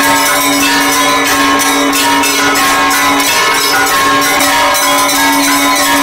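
Several hanging bronze temple bells being rung continuously. Strikes come close together and overlap into an unbroken ringing, with one strong tone held underneath.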